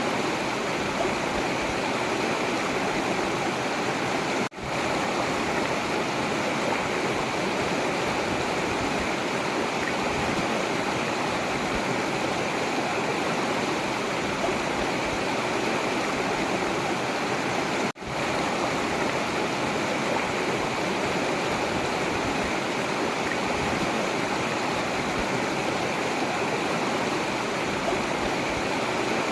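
Forest river water rushing steadily. The sound drops out for an instant twice, about four and a half seconds in and again about eighteen seconds in.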